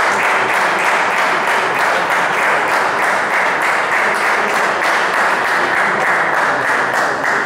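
Spectators clapping and applauding a won point in table tennis, a steady dense patter of many hands.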